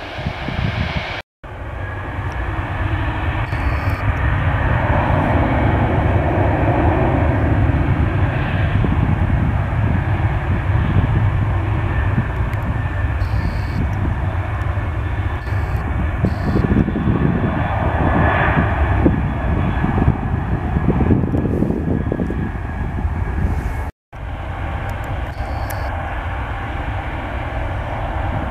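Jet airliner turbofans at takeoff thrust, chiefly a Boeing 737-800's CFM56 engines on the takeoff roll: a loud, steady deep rumble with a higher whine over it. The sound drops out for an instant twice, about a second in and near the end, and after the second dropout the engines are those of an Airbus A350 on its departure roll.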